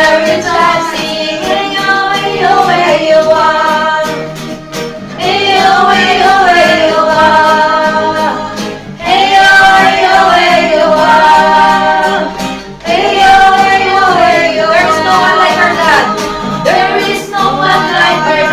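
A small group singing a worship song led by a woman's voice, with long held notes, accompanied by acoustic guitar and keyboard.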